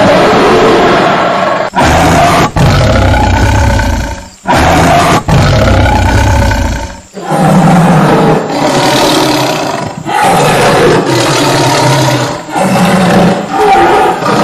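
Tiger roaring: a series of loud, long calls that break off abruptly several times.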